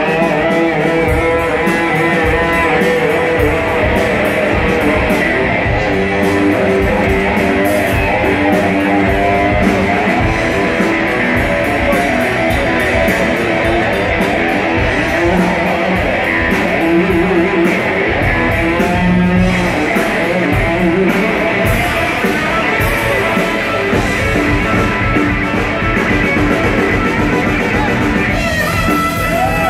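Live blues-rock band: electric guitar playing held, bending lead notes over bass guitar and drums, loud through the stage PA.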